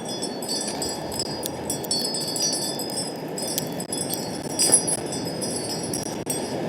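Wind blowing steadily with a set of small wind chimes tinkling: repeated light strikes each ringing briefly at the same few high pitches.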